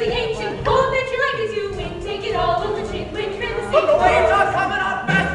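Live musical-theatre number: cast members singing over instrumental accompaniment, heard from the auditorium seats.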